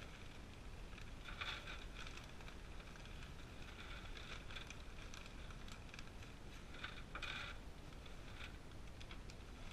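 Plastic bag crinkling as wood shavings are poured out of it and patter into a plastic tub, faint and uneven, with louder bursts about a second and a half in and again around seven seconds.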